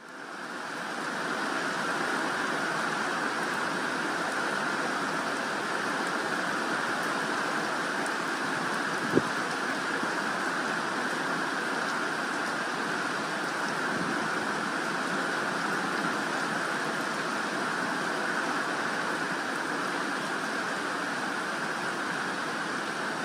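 Steady rain falling, fading in over the first second or so, with a single sharp tap about nine seconds in.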